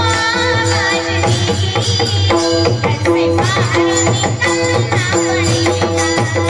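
Instrumental interlude of Indian devotional song accompaniment: tabla drumming under a melodic instrument playing held, repeated notes with sliding ornaments.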